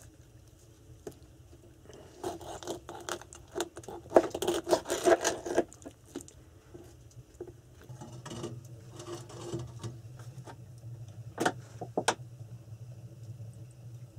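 Clatter and scraping of a knife and kitchen things being handled on a wooden cutting board and around the stove, busiest a few seconds in, with two sharp knocks near the end and a steady low hum underneath in the second half.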